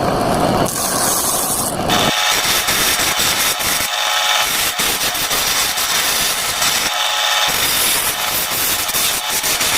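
Miniature saw cutting through wood with a continuous rasping hiss. The sound changes about two seconds in, when the deeper low end drops away and a thinner, higher rasp carries on.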